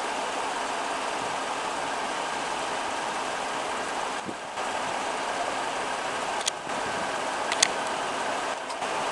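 Steady running noise of an idling car, with two short sharp clicks about six and a half and seven and a half seconds in.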